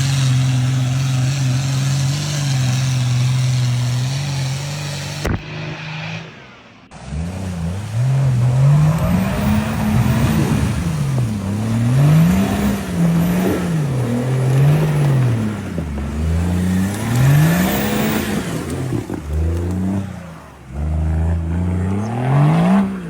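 Off-road 4x4 engine running at a steady pitch under load. After a short break, it is revved up and down repeatedly, its note climbing and falling every second or two.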